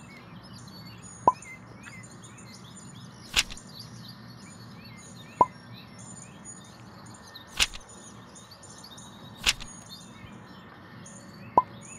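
Small birds chirping over a steady outdoor background, broken by six sharp clicks about two seconds apart. Three of them are short pings and the other three are full-range clicks.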